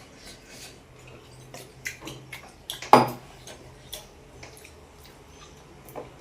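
Light clinks and scrapes of plates and dishes during a meal, with one louder knock of tableware about three seconds in.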